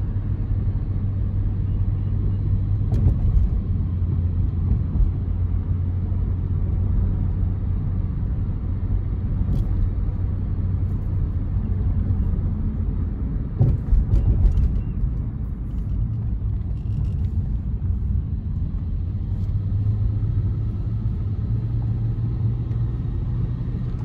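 A car driving along: a steady low rumble of engine and road noise, with brief knocks about three seconds in and again around the middle.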